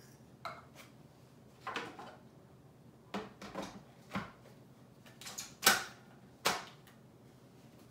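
A series of separate light clicks and knocks, about nine in all, the loudest two a little before the end: hard plastic and kitchen items being handled at a food processor, such as its bowl and lid being set and fitted.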